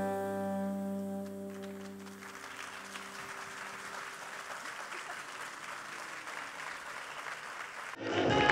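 A live band's final held chord rings out and fades over the first two seconds, then an audience applauds steadily. Near the end, louder music cuts in abruptly.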